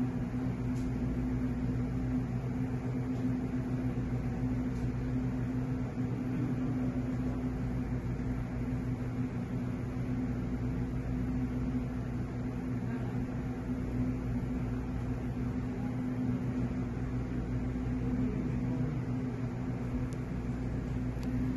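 Steady mechanical hum with a constant low drone over a light hiss, unchanging throughout.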